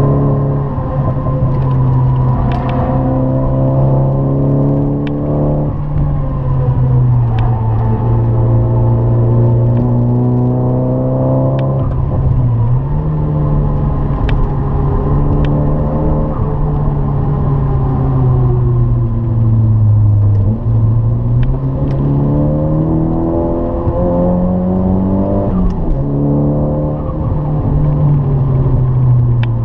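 Nissan 200SX's turbocharged four-cylinder engine heard from inside the cabin under hard driving, the revs climbing and dropping several times as it is driven through corners and shifted, over a steady low rumble of road and tyre noise.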